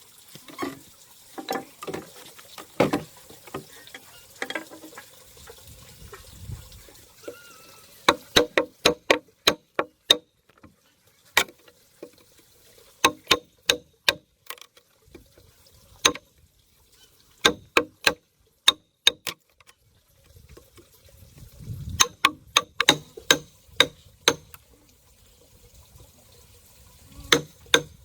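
Hammer blows in quick runs of several, about three or four a second, each with a short ringing tone, with pauses between the runs. Softer, scattered knocks and handling sounds come before the hammering starts, about a third of the way in.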